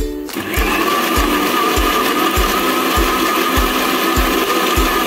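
Electric mixer grinder running with a steady whine as its steel jar grinds onion, tomato, ginger, garlic and whole spices into a fine paste; it starts just after the beginning and cuts off near the end. A background music beat continues underneath.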